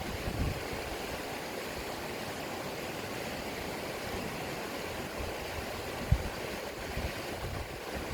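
Steady rushing of river water flowing over rocks. Wind buffets the phone's microphone in short low gusts, the strongest a brief bump about six seconds in.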